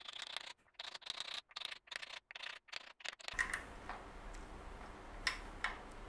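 Clicks and light rattles of workshop handling while a nylon gear is fitted onto a lathe, chopped by several abrupt silent cuts. Then a faint steady low hum, with two sharp clicks near the end.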